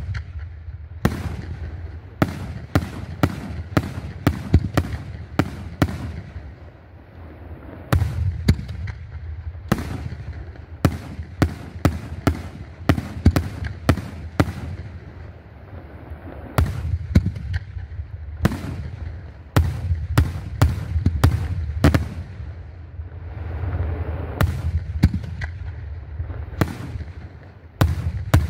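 Aerial firework shells bursting in rapid volleys: many sharp bangs over a low rumbling echo, with brief lulls between the volleys.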